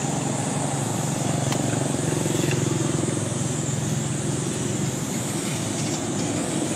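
Steady low hum of a running motor vehicle engine, growing slightly louder for a moment a couple of seconds in, over a constant high hiss.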